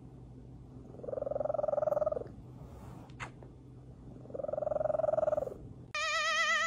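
Domestic cat purring close up, the purr swelling for about a second at a time roughly every three seconds as it breathes. About six seconds in, a different cat starts a loud, long wavering yowl with a steady vibrato, likened to singing opera.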